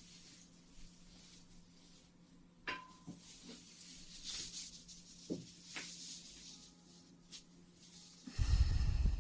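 Close-miked ASMR trigger sounds: scattered soft clicks and light rustling, then a loud muffled rubbing against the microphone for about a second near the end.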